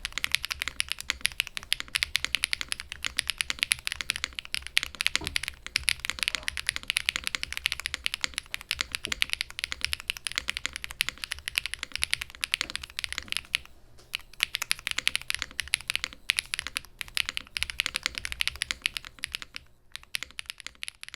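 Continuous typing on a PMO Wave75 mechanical keyboard with HMX Yogurt switches, WS Orchid Strings keycaps and no foam inside: a rapid stream of key strokes with a short pause in the middle, thinning out near the end.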